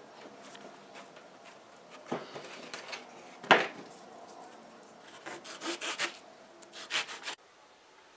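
Hands rubbing and pressing foam strips onto a foam seat base: irregular rustling scrapes and handling clicks, with a sharp knock about three and a half seconds in. The sound cuts off abruptly shortly before the end.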